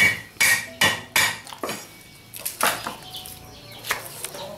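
Metal basin and kitchen utensils being handled and knocked together: a string of irregular sharp clanks, some ringing briefly.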